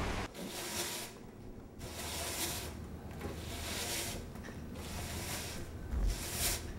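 Broom sweeping a floor: repeated swishing strokes, about one every second and a half.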